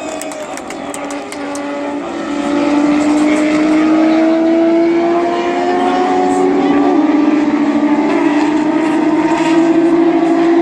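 Racing car engines running on the circuit, several engine notes at once, slowly rising in pitch and growing louder from about two seconds in.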